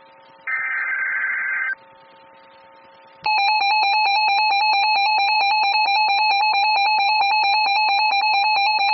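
NOAA Weather Radio emergency alert: a short burst of the SAME digital header data, a gap, then about three seconds in the long, steady warning alarm tone starts and holds.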